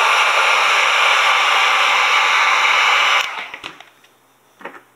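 Electric heat gun running: a steady rush of blown air that cuts off suddenly about three seconds in, followed by a few light knocks as it is set down.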